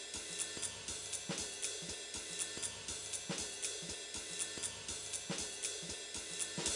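Background music: a steady drum-kit beat with hi-hat and cymbal strokes about four times a second and a heavier beat about every two seconds.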